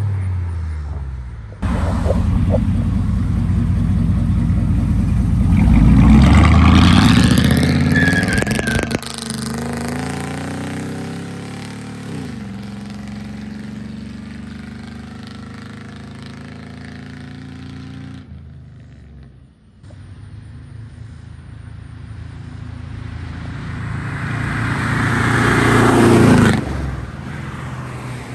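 Truck with a loud exhaust accelerating hard, its engine note climbing to a peak and then dropping away, followed by a lower steady engine sound. After a short lull, a second loud acceleration builds and cuts off suddenly near the end.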